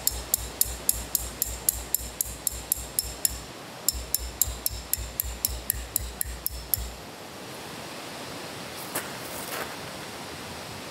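Hammer driving a metal tent stake into gravel, steady blows of about three a second, each a dull thud with a sharp metallic click. The blows pause briefly about three and a half seconds in, resume, and stop about seven seconds in, leaving a steady outdoor hiss.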